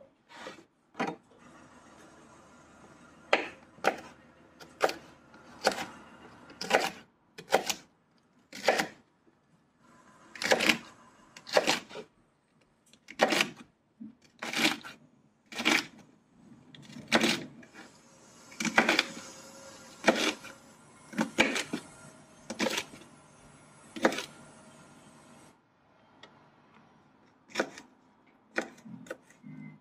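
Kitchen knife chopping runner beans on a wooden cutting board: sharp knocks of the blade through the pods onto the board, about one a second, some in quick doubles, with a pause near the end.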